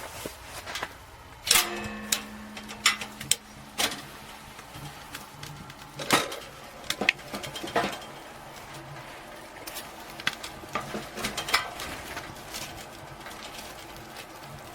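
Irregular clicks, knocks and clatter of hard objects being handled, with a metallic clank about a second and a half in that rings on for about two seconds.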